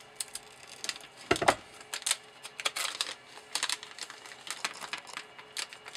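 Small plastic parts handled on a workbench: an irregular run of clicks and rustles, with one louder knock about a second and a half in.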